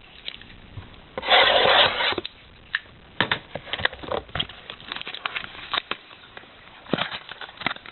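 Cardboard trading-card box and its packaging being handled: a loud rasp lasting almost a second about a second in, then scattered clicks, taps and rustling of cardboard.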